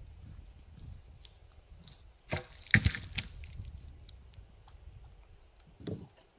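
Wooden knocks as a long wooden pole is set down on a log frame: three knocks close together around the middle, the middle one the loudest, and one more near the end.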